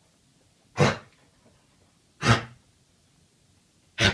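An animal coughing: three short, harsh coughs about a second and a half apart.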